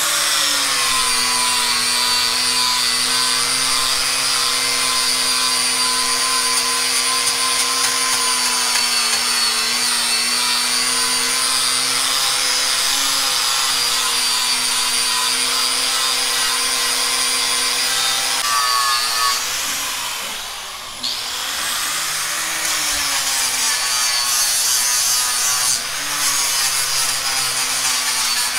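Electric angle grinder running continuously against metal with a steady whine. The pitch and level sag briefly about twenty seconds in, then recover.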